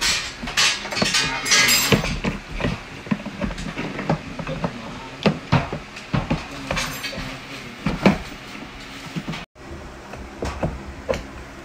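Irregular hard-plastic clicks and knocks as wheels are handled and pushed onto the axle of a children's electric ride-on motorcycle, with a short rustle of plastic wrapping near the start.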